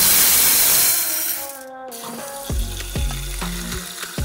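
Dry yellow lentils poured from a glass into an empty cooking pot: a loud rushing rattle for about a second and a half that then fades out, followed by background music.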